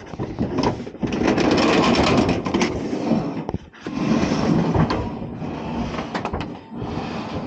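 Scraping and knocking as a solar panel is hauled up and handled on a corrugated metal roof, with sharp clicks throughout and a brief lull about halfway through.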